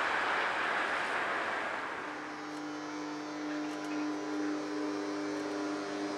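A passing train's running noise fading away as it recedes down the line. About two seconds in it gives way to a steady hum with a single held tone and a few fainter overtones.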